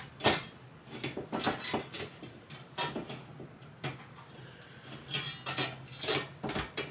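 Irregular clicks and light metallic clinks of ceiling fan parts and hardware being handled during assembly.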